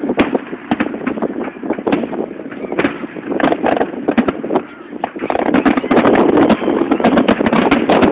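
Fireworks display going off in a dense barrage: many sharp cracks and crackles over a continuous, swelling rumble of bursts, loud and somewhat distorted on a phone's microphone.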